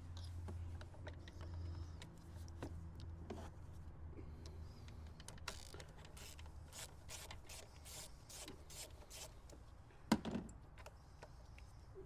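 Hand tool turning out the size-25 screws that hold an Audi A4's PCV valve: a run of evenly spaced rasping clicks, about two or three a second, through the middle, then a single louder knock near the end, over a steady low hum.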